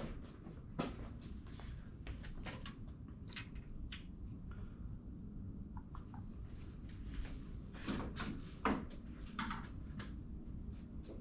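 Scattered light clicks and knocks from handling work, over a low steady background hum, with a few louder knocks about a second in and around eight to nine seconds in. No engine is running or cranking.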